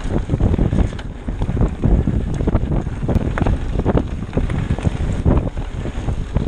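Wind buffeting the microphone of a camera mounted on a mountain bike riding fast downhill, over the tyres rolling on a rough dirt and stone trail. Frequent knocks and rattles come from the bike as it bounces over the rocks.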